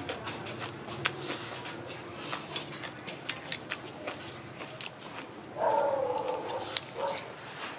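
Close-up eating sounds: chewing and lip-smacking with many short wet clicks as a mouthful of soup and chicken is eaten. A brief pitched sound, like a voice or an animal call, about six seconds in.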